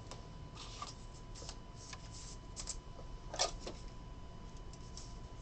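Trading cards being handled and slid into plastic penny sleeves: soft, scattered rustles and slides, with a slightly louder rustle about three and a half seconds in.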